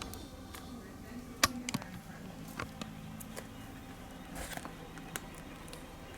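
Quiet room tone with a faint steady hum and a few scattered short clicks and taps, the clearest about one and a half seconds in.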